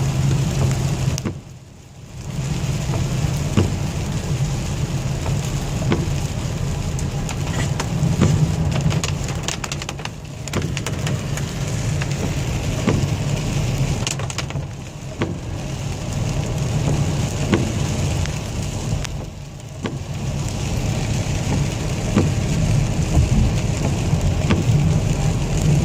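Heavy rain falling steadily, with scattered drops tapping and a heavy low rumble underneath; it eases briefly four times.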